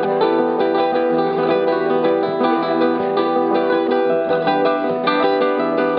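Two classical nylon-string guitars played together as a duet, a dense stream of quickly picked notes over ringing chords.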